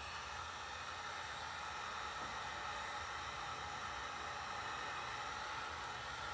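Electric heat gun running steadily, a even blowing rush, aimed at a car's trunk emblem to soften the badge adhesive.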